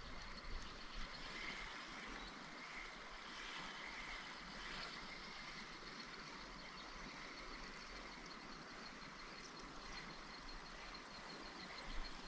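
Quiet creekside ambience: a steady, faint hiss of running water, with a thin high steady tone above it, typical of insects.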